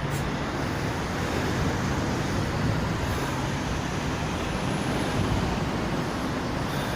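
Steady road traffic noise: a continuous, even wash of passing vehicles with no single event standing out.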